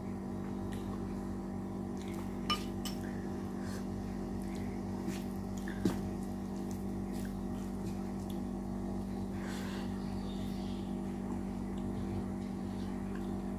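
Quiet eating of rice, rajma curry and curd: a few faint short clicks of a utensil against a plate, about two and a half and six seconds in, over a steady low electrical hum.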